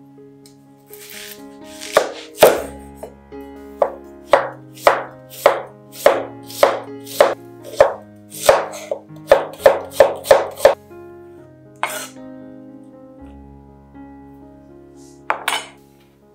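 Chef's knife slicing an onion on a wooden cutting board: a run of sharp knife strikes on the board, about two a second, quickening before stopping about eleven seconds in, then two single strikes.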